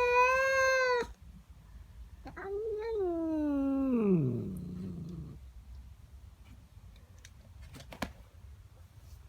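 Domestic cat caterwauling, a territorial yowl at another cat in its garden. One long, steady call ends about a second in, then a second wailing call slides down to a low pitch and fades.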